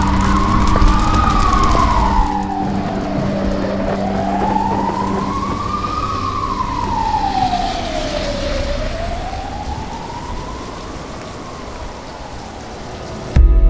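Emergency-vehicle siren sounding a slow wail, rising and falling about every five seconds and slowly fading. Crackling noise runs under it for the first two seconds, and the siren cuts off abruptly just before the end.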